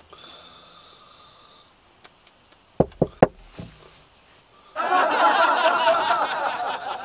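A sleeping man's faint wheezy breath, then three sharp knocks on the car window about three seconds in, then loud, rasping snoring from about five seconds in.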